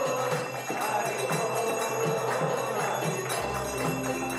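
Devotional worship music with a bell rung in a steady rhythm, about three strokes a second. Deeper sustained instrument tones come in about three and a half seconds in.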